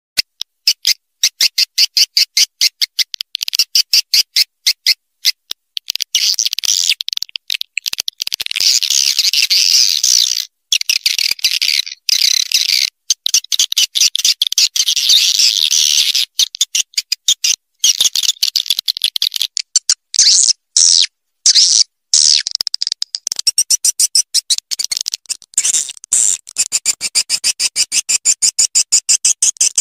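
Swiftlet calls played as a lure track for a swiftlet house: runs of sharp, high chirps repeating several times a second, alternating with stretches of dense chattering twitter, with a few brief gaps.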